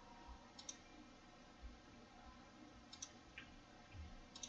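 A few faint computer mouse clicks, spaced a second or more apart, against near silence. They are the clicks that place points while drawing lines in a CAD sketch.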